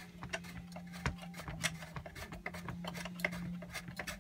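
Irregular small clicks and taps of 3D-printed plastic robot-neck parts being handled and fitted together, the sharpest about a second in, over a steady low hum.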